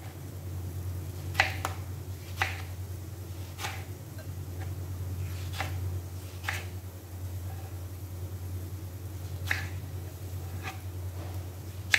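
Serrated kitchen knife slicing a tomato on a plastic cutting board: about ten short, sharp taps as the blade cuts through and meets the board, spaced irregularly, over a steady low hum.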